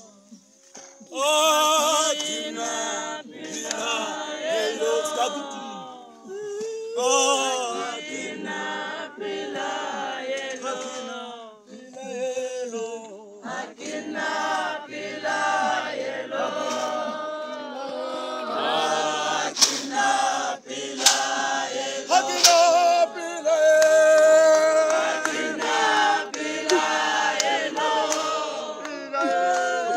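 A church congregation of men and women singing a hymn together, loud from about a second in.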